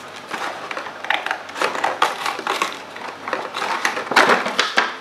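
Scissors cutting and hands tearing a toy box's cardboard packaging: irregular crackling and rustling, loudest about four seconds in.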